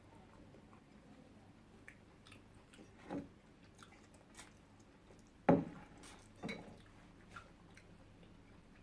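Close-up eating sounds: quiet chewing of spaghetti with small scattered mouth clicks and taps. There is one much louder knock about five and a half seconds in, with smaller ones a little before and after it.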